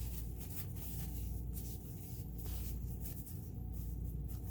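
Irregular light rubbing and wiping strokes as the Elna Supermatic sewing machine's parts are cleaned by hand, over a steady low hum.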